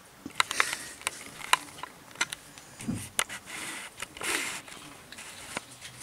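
A lamb and a collie pup scuffling on loose gravel around a plastic dog bed: irregular clicks and crunches of hooves and paws on stones, with a few brief scuffling bursts.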